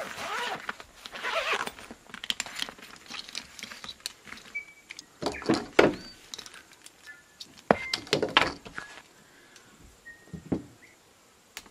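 Zipper of a fabric solar-panel carry bag being pulled open, then cables and plastic connectors being handled: rustling with scattered sharp clicks and knocks that thin out toward the end.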